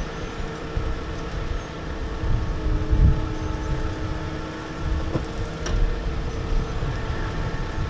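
Truck engine running steadily, a pickup being pulled backward out of soft sand by a tow truck, with wind buffeting the microphone in low rumbles.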